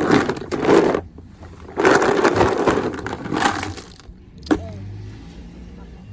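Plastic animal toys being rummaged and handled, clattering and crackling in two spells, then a single sharp click about four and a half seconds in.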